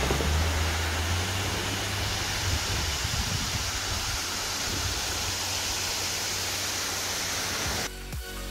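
Waterfall: a steady rush of falling water, with a low rumble underneath for the first second or so. Music starts near the end.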